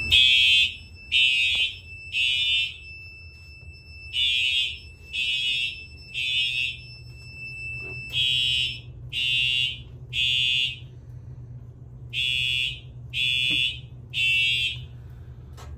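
Fire alarm horns sounding the temporal-three evacuation pattern: three short, high blasts, a pause, then three more, over and over. This is the system in alarm after its smoke detector was tripped. A steady high tone runs underneath and stops about eight seconds in.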